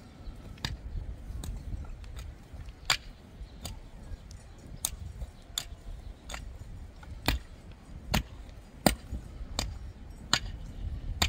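Metal hoe blades chopping into rocky, clod-filled soil, a sharp scraping clink with each stroke, about one strike every three-quarters of a second as two men dig.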